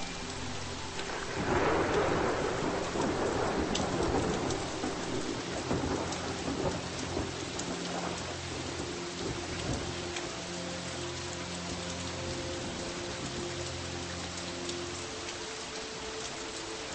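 Steady rain falling, with a roll of thunder swelling about a second and a half in and slowly fading. Soft held musical tones sit underneath, changing every few seconds.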